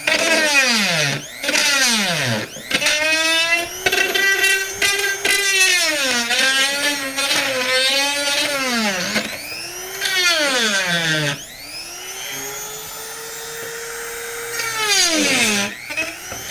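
Handheld rotary tool with a grinding bit working PVC pipe around a hole. Its high motor whine sags in pitch each time the bit bites into the plastic and picks up again when it eases off, over and over, with a steadier stretch in the second half.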